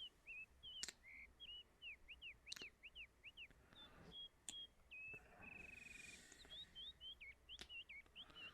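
Faint birdsong: quick, repeated high chirping notes several times a second, with a brief rapid trill about five seconds in and a few sharp clicks.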